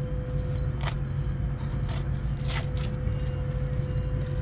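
Fillet knife scraping along a cod's rib bones as the fillet is cut free, a few short scrapes over a steady low engine hum with a constant tone.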